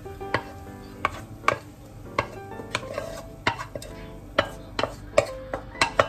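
Wooden spatula knocking and scraping against a non-stick frying pan as fried rice is pushed out onto a plate, with sharp knocks about twice a second.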